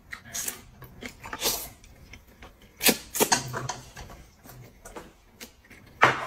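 A person eating noisily: slurping boiled noodles and biting into a raw scallion stalk. The sounds come as an irregular run of short, sharp mouth noises, loudest about three seconds in and again near the end.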